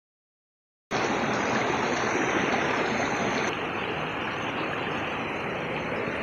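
Silence for about the first second, then the steady rush of flowing river water cuts in abruptly and continues.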